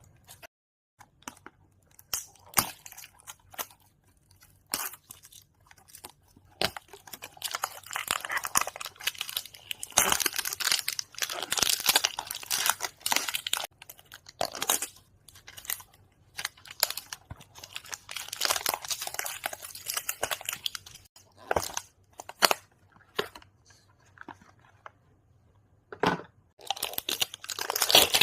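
Soap gift-pack packaging handled and opened by hand close to the microphone: irregular rustling, crinkling and tearing of wrapper and box, with scattered sharp clicks and taps. The densest rustling comes in stretches around the middle and again near the end, with quieter gaps between.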